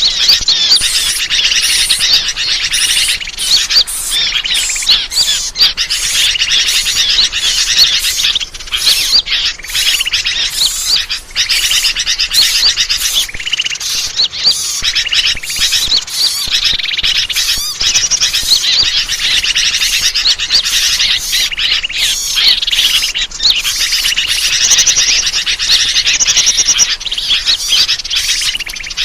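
Dense, unbroken chatter of many small birds chirping and trilling over one another, a bird-lure ('suara pikat') recording used to draw wild birds in.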